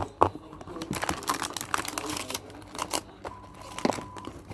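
Packaging crinkling and tearing while being unwrapped, with sharp clicks and taps among the rustling.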